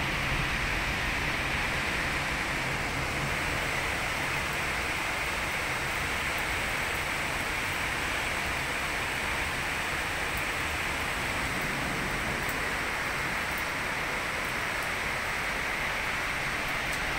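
Heavy rain pouring down steadily, a constant even hiss.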